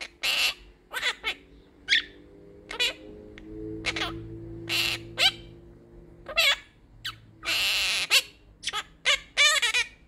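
Quaker parrot (monk parakeet) talking in short raspy bursts, mimicking phrases such as 'baby, what happened', 'baby, come here' and 'baby tudududuu', with one longer harsh squawk about three quarters of the way through.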